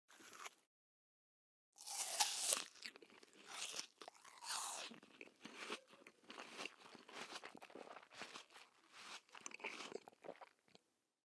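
Crunchy food being bitten and chewed with the mouth close to the microphone. One loud crunching bite comes about two seconds in. A long run of crackly chewing crunches follows and stops just before the end.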